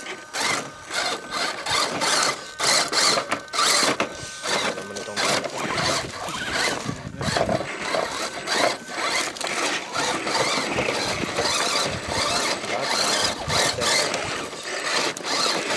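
Radio-controlled scale crawler trucks crawling over rough rocks: small electric motors and geartrains whining as they drive, with irregular clicks and knocks of tyres and chassis against the stones.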